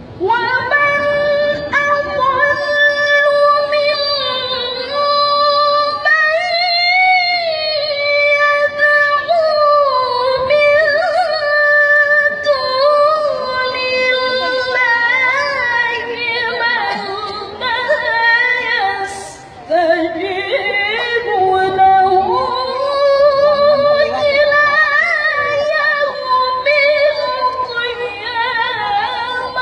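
A woman reciting the Quran in the melodic tilawah style of a qari'ah: long held notes ornamented with slides and trills, breaking off briefly about two-thirds of the way through.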